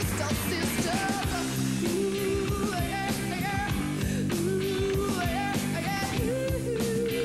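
Rock song playing: a singer's wavering melody over drums and steady bass notes.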